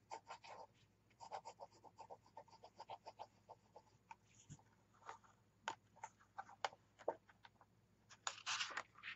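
Faint pen nib writing on paper in a quick run of short strokes, then a notebook page lifted and turned near the end.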